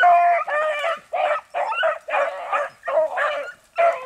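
Beagle baying on a rabbit's track: about eight short, pitched yelps in quick succession, the hound giving tongue as it runs the scent.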